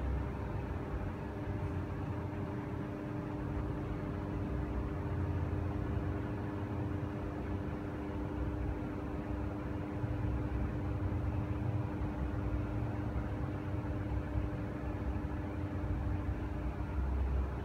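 A machine running steadily: a hum of several steady tones over a low rumble, with the strongest tone dropping out near the end.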